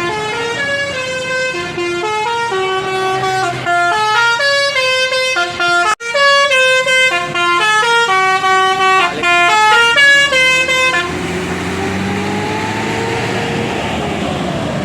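Tour bus's basuri musical horn playing a tune of quick stepped notes, with a brief break about six seconds in. The tune stops after about eleven seconds, leaving steady engine noise.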